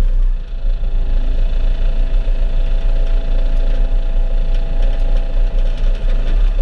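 Engine of farm machinery running steadily, with a constant low rumble and a steady droning tone.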